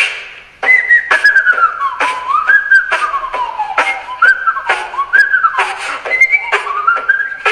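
A beatboxer whistling a melody that slides down and up in pitch, over sharp clicking beats made with the mouth. It starts about half a second in.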